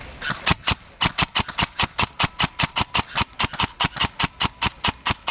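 Airsoft gun firing a rapid string of shots, about six or seven a second: two quick shots, a short pause, then continuous fire.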